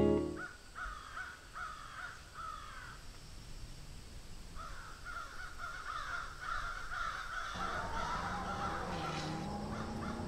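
Birds calling in quiet open air: a few short calls about a second apart, then a longer, denser run of calls. A low steady hum comes in about three-quarters of the way through.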